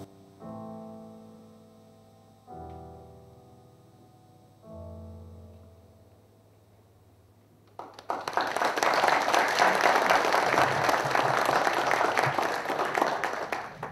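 Three slow piano chords, each struck and left to fade, end the song; about eight seconds in the audience breaks into applause, louder than the piano, which stops just before the end.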